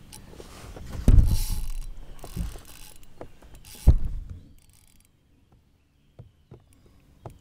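Fishing reel being cranked and gear knocking against the kayak's hull as a fish is hooked and played on a rod. There are two heavy thumps, about a second in and about four seconds in. After that it quietens to a few small clicks.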